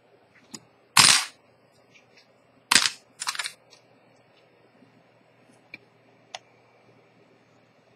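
Two sharp clatters about a second and a half apart, the first the loudest, then a brief rattle, as steel watchmaker's tweezers are set down on a hard workbench; a couple of faint clicks follow as the watch case is handled.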